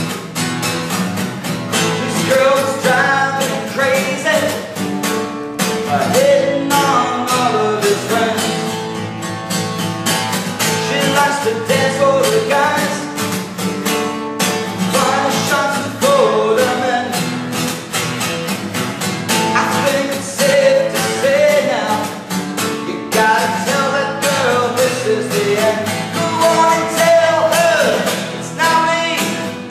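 A man singing while strumming a steel-string acoustic guitar, the strokes steady and even.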